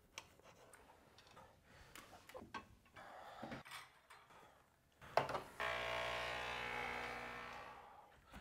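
Faint clinks and clatter of cutlery and crockery, then a click and a steady hum from a small electric kitchen appliance that starts about five seconds in and slowly fades over nearly three seconds.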